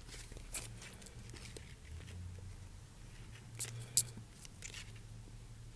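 Faint crackles and ticks of a thin vinyl phone skin and its backing liner being handled and peeled while it is aligned on a phone, with a sharper click about four seconds in, over a low steady hum.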